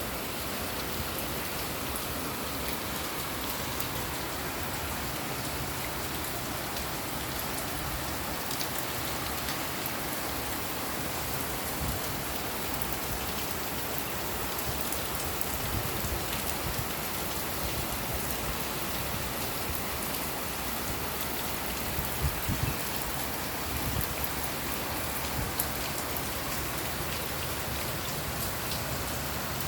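Steady rain falling on a balcony, an even hiss with scattered sharp drop ticks, and a few louder low thuds about three-quarters of the way through.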